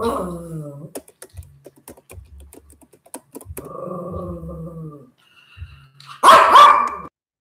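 Small dogs growling at each other over food, a low rumbling growl at the start and again for about a second and a half midway, with light clicks in between, then one loud harsh bark near the end.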